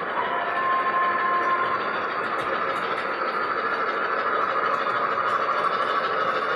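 Model train running on the layout track, a steady whirring rumble, with a short steady tone about half a second in.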